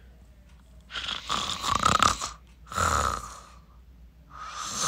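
Exaggerated comic snoring: three long snores in a row, the third still going at the end.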